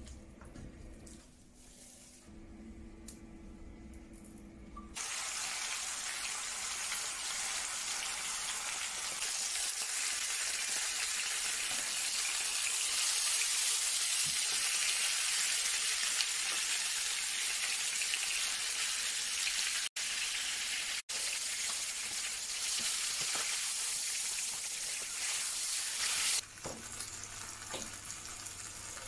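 Chicken pieces sizzling in hot oil in a frying pan, being browned before they are finished in the oven. The loud, steady sizzle starts suddenly about five seconds in, drops out twice for a moment, and cuts off near the end, leaving a low hum.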